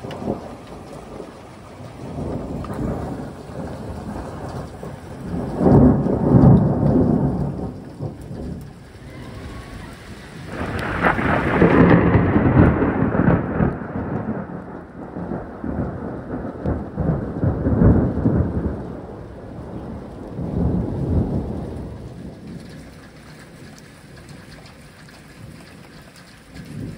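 Thunder rolling in about five long peals that swell and fade, the loudest about midway, over the steady hiss of hard rain.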